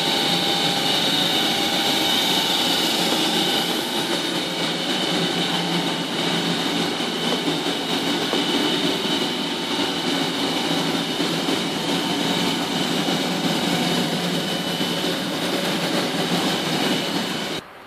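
Knife-polishing and finishing machinery running: buffing-wheel motors and belt sanders with dust extraction make a steady whirring with a high whine. The sound cuts off suddenly near the end.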